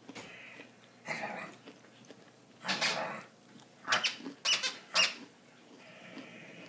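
A small dog making short, noisy sounds in five or so bursts while it plays with a long toy snake, the loudest cluster coming between about three and five seconds in.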